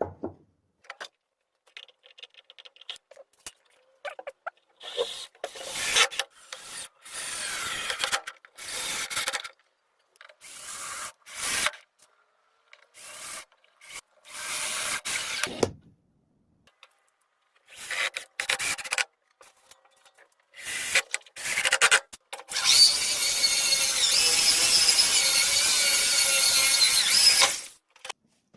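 Woodworking tools on wood, heard in short cut-together snippets: a run of brief strokes of a hand tool working the wood, then a small power tool running steadily with a whine for about five seconds near the end.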